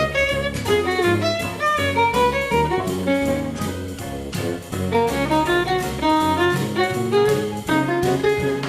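Background music: an upbeat jazzy instrumental with a walking bass line and quick melodic notes.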